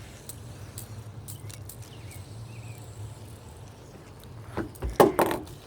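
Scattered light clicks over a low steady hum, then a quick cluster of loud clicks and knocks about five seconds in.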